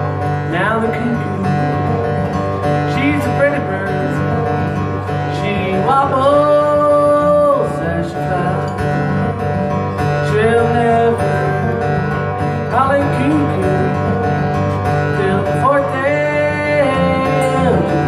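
Acoustic guitar picked steadily, with a man's voice singing long held notes that slide up into each one, without clear words.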